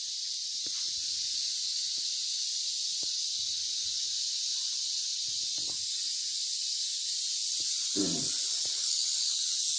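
Western diamondback rattlesnake buzzing its rattle in a steady high hiss, a defensive warning from a snake that is being restrained and is not happy. Faint rubbing and handling noises underneath.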